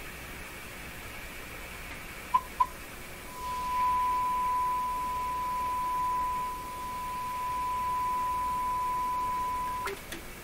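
Hallicrafters S-40A shortwave receiver's speaker giving a steady hiss. Two short beeps come in, then a steady high-pitched tone as the signal generator's modulated signal is tuned in on the receiver. The tone cuts off suddenly near the end.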